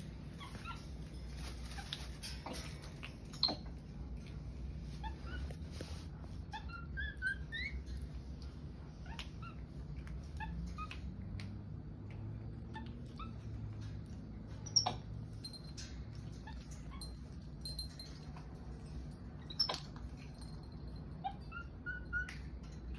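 Capuchin monkeys giving short, high squeaks and chirps while moving about a wire cage, with a few sharp knocks, the loudest about fifteen and twenty seconds in.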